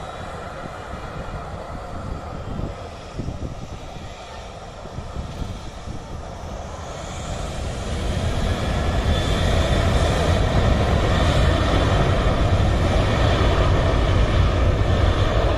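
Boeing 737 jet engines heard across the airfield: a steady rumble that swells about halfway through and then holds loud, as the engines are powered up for departure.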